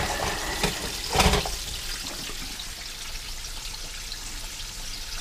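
Water at a rolling boil bubbling steadily in a pan on an electric stove. A brief bump about a second in.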